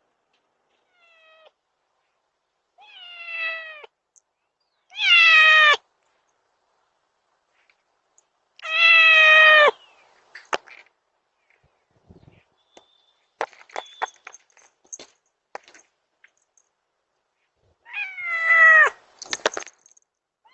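Domestic cat meowing about five times, each meow ending on a falling pitch, the two in the middle loudest: a cat asking to be let in. Scattered short clicks come between the later meows.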